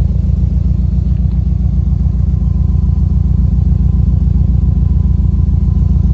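Subaru Impreza 2.5RS's 2.5-litre flat-four boxer engine idling steadily, heard at the tailpipe of its Hayward & Scott aftermarket exhaust: a loud, low, evenly pulsing exhaust note.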